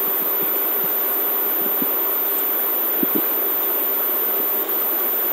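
Steady background hiss with a faint hum, the noise floor of a voiceover microphone. Two faint computer-mouse clicks come about three seconds in.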